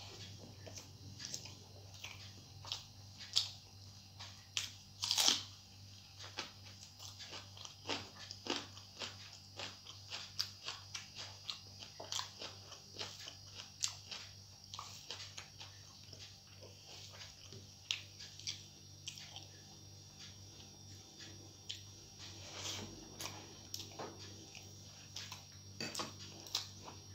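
Close-miked chewing of hand-eaten rice with methi shak: wet, irregular mouth clicks and smacks, with a louder smack about five seconds in, over a faint steady hum.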